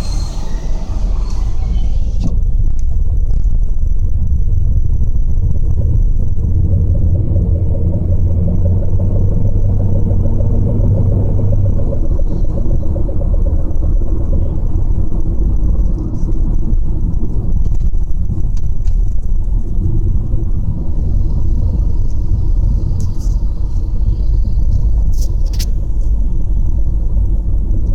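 Skoda Superb under way with a steady low rumble that swells for several seconds about a quarter of the way in, as it does under acceleration. This is the weird noise on acceleration that the owner is trying to pin down, its cause unknown. A few sharp clicks come near the end.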